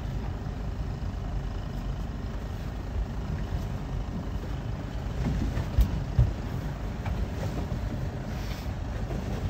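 Steady low rumble of a boat engine running, with two dull thumps a little past the middle.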